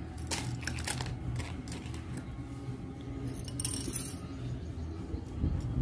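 Metal bangles clinking and jingling against one another as they are handled, in a few bright clusters, over a low steady hum.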